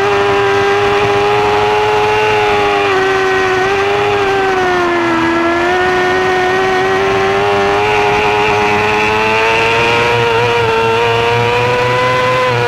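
Yamaha R6 600 cc inline-four racing engine at high revs, heard from a camera mounted on the bike. It holds a steady high note under throttle, dips slightly about five seconds in and climbs again near the end.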